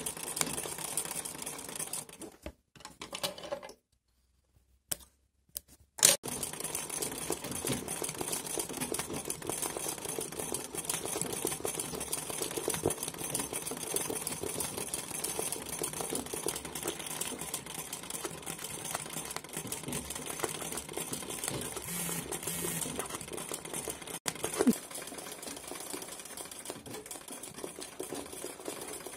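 Straight-stitch domestic sewing machine running at speed, its needle stitching free-motion embroidery in a rapid, even rattle. It stops briefly a couple of seconds in and starts again with a click about six seconds in.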